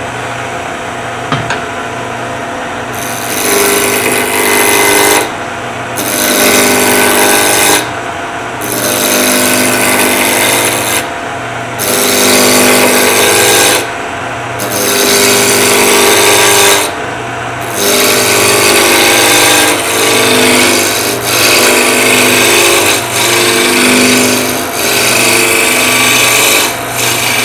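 A wood lathe runs with a steady hum while a spindle roughing gouge cuts a spinning wooden spindle blank in a series of passes of two to three seconds each, with short pauses between them. The first three seconds are the lathe turning without a cut. The blank is close to round, so the cut is going from an interrupted bump-bump-bump to a smooth, steady sound.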